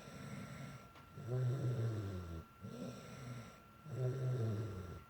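A sleeping girl snoring, congested from a cold: two loud, rough inhaling snores about two and a half seconds apart, with quieter breathing out between them.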